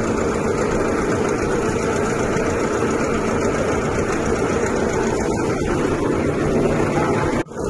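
Boat engine running steadily with a low, even drone; the sound cuts out for a moment near the end.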